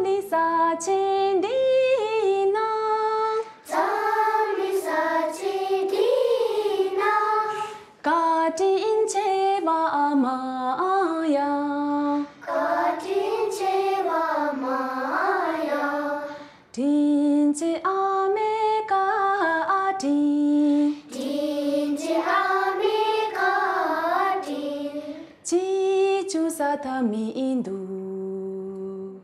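A child singing a slow, solo song in phrases of a few seconds, with short pauses for breath between them.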